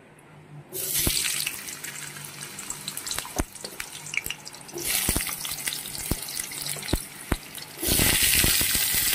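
Potato chunks dropped into hot oil in a kadai, the oil sizzling loudly with sharp pops. The sizzle starts suddenly about a second in, eases and swells again, and surges loudest near the end as more potatoes go in.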